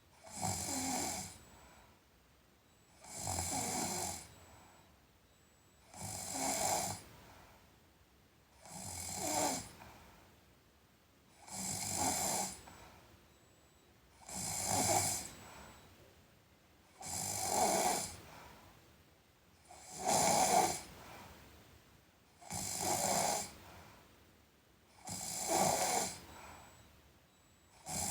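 A sleeping person snoring in a slow, regular rhythm: about ten snores, one every two to three seconds, with quiet breathing between them.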